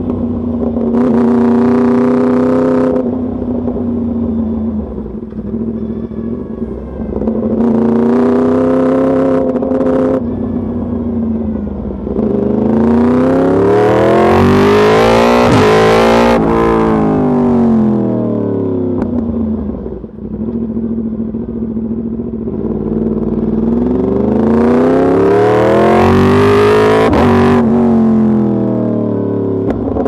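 Yamaha YZF-R1's crossplane inline-four running through an Arrow race exhaust, accelerating hard four times. Each time the revs climb, then the sound drops off sharply as the throttle shuts. The longest and highest-revving pull comes near the middle.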